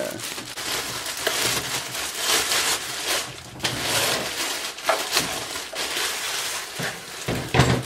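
Clear plastic bag crinkling and rustling as it is handled and pulled off a chop saw, with a heavier thump near the end.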